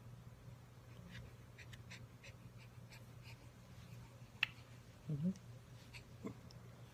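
A baby's short vocal sound, a brief coo that rises in pitch about five seconds in, with a second, shorter one a second later. Before it come faint small clicks and one sharp tick, over a steady low hum.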